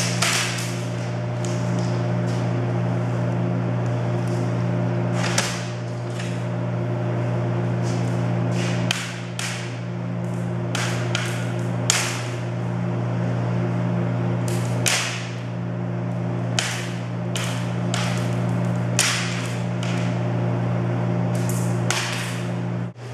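Plastic juggling rings clacking sharply and irregularly as they are thrown and caught. Under the clacks runs a steady, low electrical hum.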